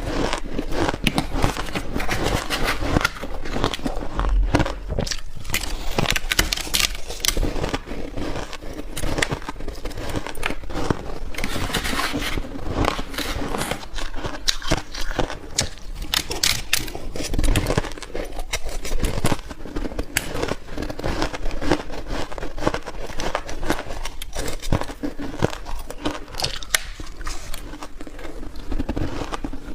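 Soft, powdery freezer-frost ice being bitten and chewed: a dense, continuous run of crisp crunching crackles.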